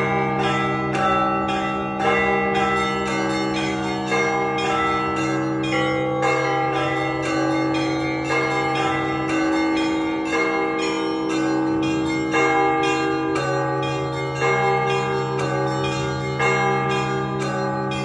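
Orthodox church bells rung for a service: smaller bells struck in a quick, steady rhythm over the longer ringing of larger, deeper bells.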